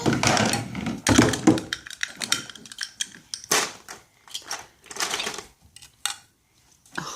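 Small plastic toy pieces, Lego bricks and play-kitchen items, clicking and clattering as they are handled, in irregular bursts with a few louder rattles.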